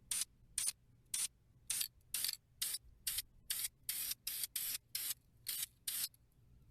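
Quick hissing bursts of spray from a sprayer, about fourteen, roughly two a second and each a fraction of a second long, stopping about six seconds in.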